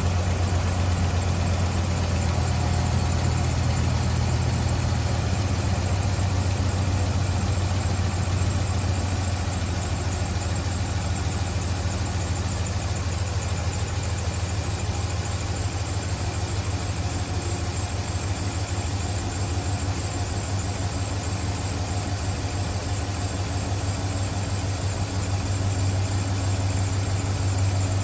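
Dodge 5.7 HEMI V8 idling steadily, run after an ignition coil was replaced to cure a cylinder-5 misfire (code P0305). A faint steady high-pitched whine sits above the engine note.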